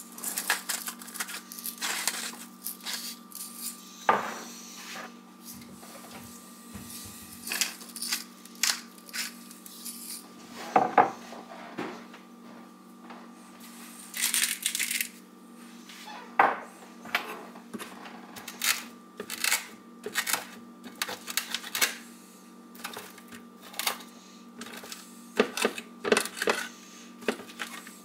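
Hands handling small hard items and clear plastic packaging: a scatter of sharp clicks and taps, with a crinkle of plastic about halfway through. A faint steady hum runs underneath.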